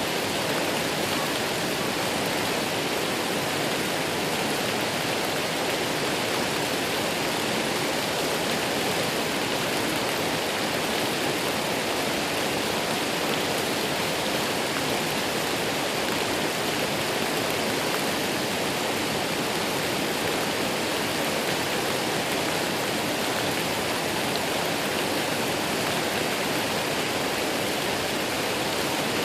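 Waterfall: falling water rushing steadily and evenly, with no change in level.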